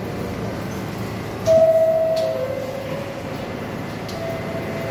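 R62 subway train on the 3 line starting to pull out of the station, with a steady low rumble. About a second and a half in, a sudden loud two-note tone sounds for about a second, the second note a little lower. A fainter tone returns near the end.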